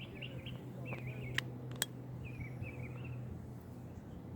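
Small birds chirping in short, falling notes in several bouts. Two sharp clicks come less than half a second apart about a second and a half in, over a steady low hum.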